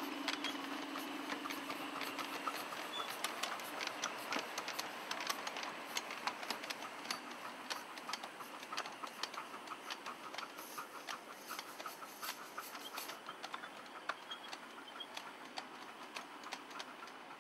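Double-headed miniature steam train running past and pulling away: sharp irregular clicking of the wheels over the rail joints over a light hiss, slowly fading as it goes.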